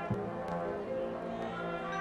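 High school marching band playing, brass holding sustained chords, with a low drum hit just after the start.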